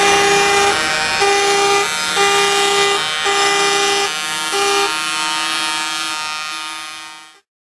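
Truck air horns sounding a series of blasts that alternate between two pitches, over the noise of passing lorries. The sound fades out near the end.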